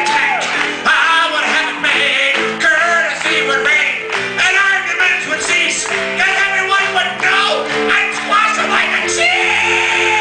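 Live music: an instrumental passage between verses of a comic sing-along song, with chords that sound like guitar and voices wavering over the top.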